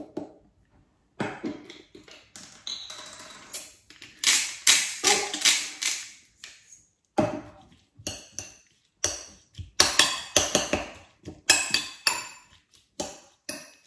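A hand-twisted pepper mill grinding black pepper in a run of grinding strokes, then a metal spoon stirring chopped tomato salsa in a ceramic bowl, scraping and clinking against the sides in the second half.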